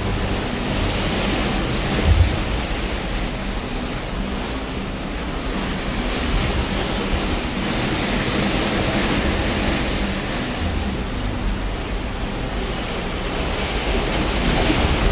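Steady rush of ocean waves and wind heard from aboard a cruise ship at sea, with short low wind buffets on the microphone about two seconds in and again near ten seconds.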